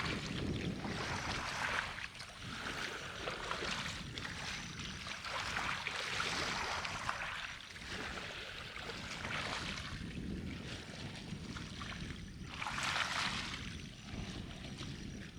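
Water at a large reservoir, with wind on the microphone swelling and easing in gusts every few seconds.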